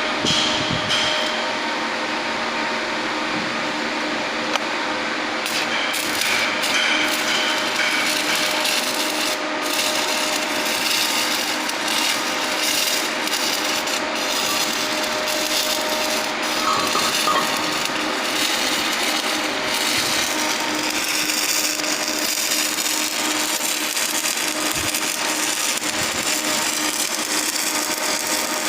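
Electric arc welding on a pipe: the arc crackling and hissing steadily without a break.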